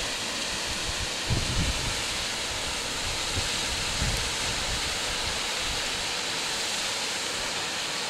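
Steady rushing hiss of a waterfall running at a low, dry-season flow over rocks into a pool. Low wind thumps on the microphone come about a second and a half in and again around four seconds.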